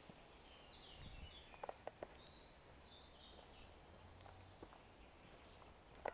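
Faint songbird chirps, short high calls in small runs, over a low rumble. A few soft clicks from footsteps on a dirt path, about a second and a half in and again near the end.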